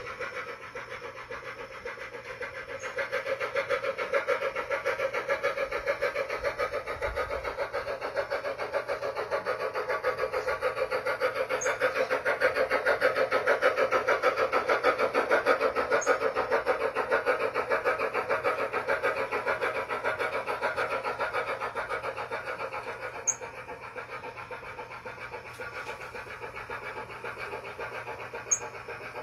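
Blunami BLU-4408 steam sound decoder in an Aristocraft C-16 G-scale locomotive, playing fast, even steam chuffing through the tender speaker. It grows louder over the first few seconds and fades in the last third. A couple of sharp clicks stand out near the end.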